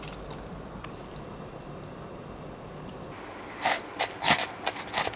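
Close-miked eating: soft chewing, then from about halfway a few loud, short crunches.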